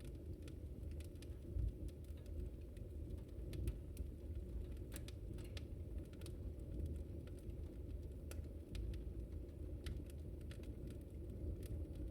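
Wood fire burning: a steady low rumble of flames with irregular sharp crackles and pops from the burning wood.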